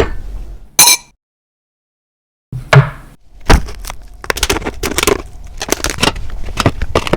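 Kitchen utensils knocking and clattering, with two sharp knocks at the start, then after a cut an uneven run of sharp knocks, two or three a second.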